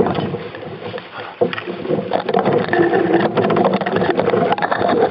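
Canoe being paddled along a river: water rushing and splashing against the hull, with close clicks and rustling. It gets louder about two seconds in.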